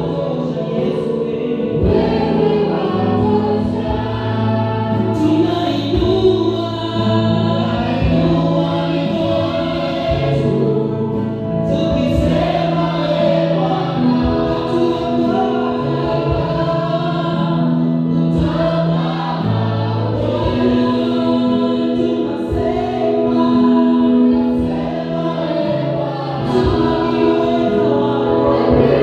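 A church worship team singing a gospel song together through microphones, with keyboard accompaniment holding chords underneath.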